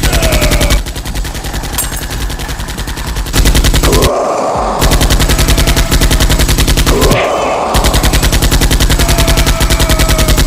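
Rapid automatic-gunfire sound effect: long strings of fast shots, broken by short pauses about one, four and seven seconds in.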